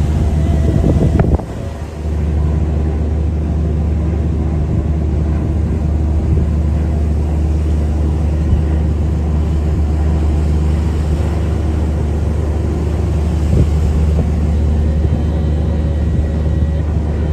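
Ship's engine drone heard on board: a steady low hum with a rushing noise over it, dipping briefly about a second and a half in.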